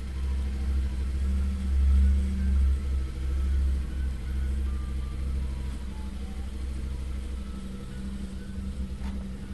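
Yamaha Ténéré adventure motorcycle's engine running at low revs as it is ridden slowly, swelling a little about two seconds in, then settling back to a steady low rumble.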